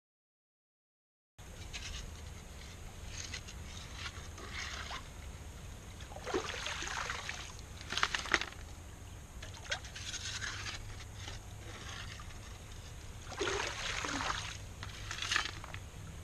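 Water splashing and gravel scraping in shallow creek water, in a series of short irregular bursts over a steady low rumble. It starts after about a second and a half of silence.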